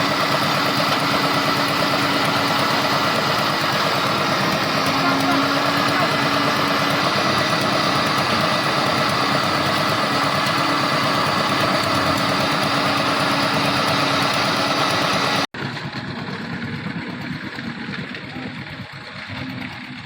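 Concrete mixer machine's engine running steadily. About fifteen seconds in, the sound cuts abruptly to a quieter, rougher machine noise.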